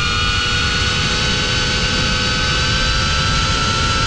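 FPV quadcopter's electric motors and propellers whining steadily as it flies, several tones held together, gently shifting in pitch, over a low rumble of wind on the on-board GoPro microphone.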